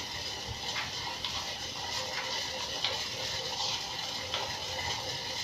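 Small pot of herbal decoction boiling on the stove: a steady hiss with scattered faint ticks and pops.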